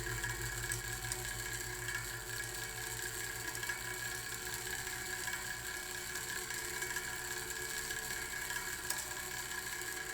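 A running clockwork mechanism ticking and whirring steadily while it sits on an aluminium cable spool. The spool picks up the vibration and adds an airy, ringing resonance.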